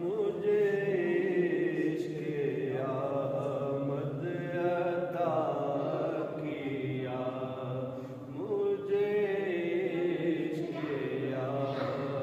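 A man's voice chanting a devotional recitation in long, drawn-out melodic phrases, with short breaks between them.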